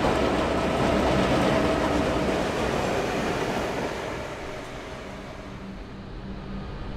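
A pair of EMD-engined long-hood diesel locomotives, a P class leading a T class, running light past at close range: diesel engines and steel wheels on the rails, fading away over the first few seconds. Near the end only a fainter steady low hum is left.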